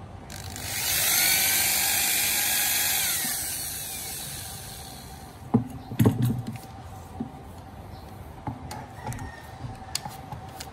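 Electric drill spinning a toothed tube cutter against the end of a hand-held wooden blank: a loud whine whose pitch shifts and sags for about four seconds before it winds down and stops. After that come a few sharp knocks and light clicks as the cutter is handled.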